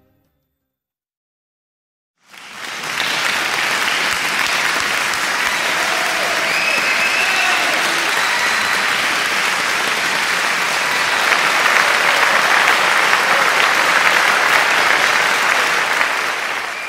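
Silence for about two seconds, then a crowd applauding steadily, with clapping that starts abruptly and keeps going to the close.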